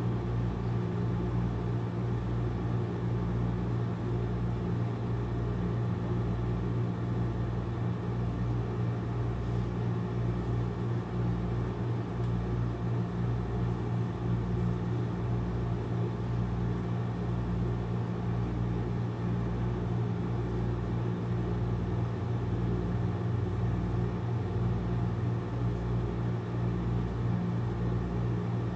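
Domestic cat purring steadily close to the microphone as its belly is rubbed. The low rumble swells and dips with each breath, about once every second and a half, the sign of a relaxed, contented cat.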